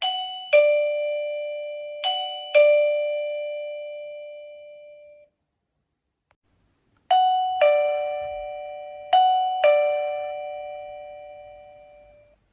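Wireless doorbell chime receiver playing a two-tone ding-dong: a high note then a lower one, twice over, each note ringing and fading. The tune cuts off suddenly, then plays again about two seconds later and rings out.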